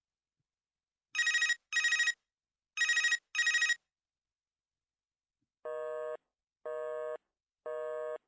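Chicco Bilingual Telephone toy's electronic ring sounding twice as a double ring, each burst fluttering. It is followed by a busy signal, an even beep about once a second: the toy's engaged tone.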